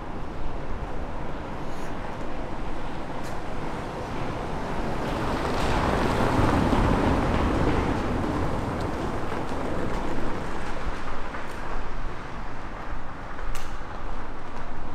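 A small van driving slowly past on cobblestones, its engine and tyre noise swelling about six seconds in and then fading away, over a steady rush of outdoor air and wind.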